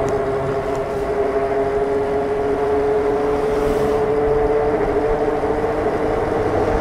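Super73 RX electric bike's hub motor whining steadily under power, slowly rising in pitch, over a constant rush of wind and fat-tire road noise.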